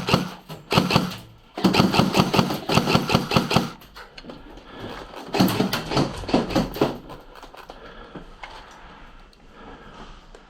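Airsoft electric guns firing long full-auto bursts, a rapid even rattle of shots, then a shorter stretch of firing and movement before it dies down near the end.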